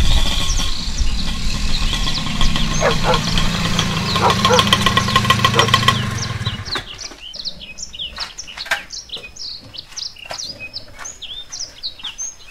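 A small motorcycle engine running as it rides up, then switched off about six and a half seconds in. Birds chirp throughout, heard clearly once the engine stops.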